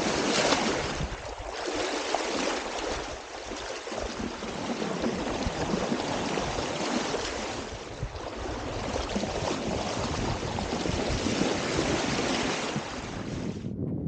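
Sailboat's bow wave: seawater rushing and splashing along the hull as the bow cuts through the swell, heard close to the waterline as a steady, uneven hiss of spray. It cuts off suddenly near the end.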